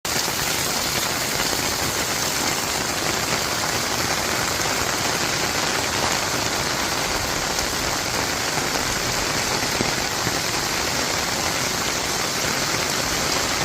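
Heavy rain falling steadily, a dense, even hiss of rain pouring down on surfaces.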